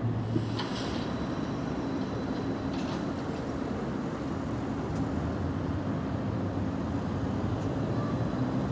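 Steady low rumble of city vehicle traffic, with a few faint clicks.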